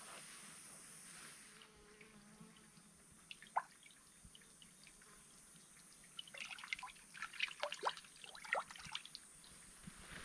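Water dripping and trickling in small drops: a few scattered drips, then a quick run of many drips about six seconds in.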